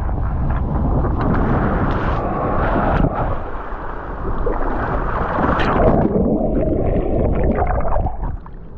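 Water rushing and splashing close around the microphone as a rider on an inflatable ring tube comes off the water slide into the splash pool. The churning drops quieter shortly before the end.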